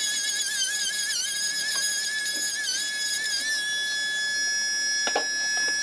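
Small handheld electric rotary carving tool whining at high speed. Its pitch sags briefly each time the bit bites into the wood, three times in the first half. It then runs steady off the work, and a short knock comes about five seconds in.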